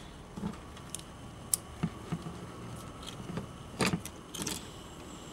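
Light clicks and small metallic rattles of a VW Polo window regulator's steel cable and plastic pulley being handled as the cable is wound and threaded, with a short flurry of clicks about four seconds in.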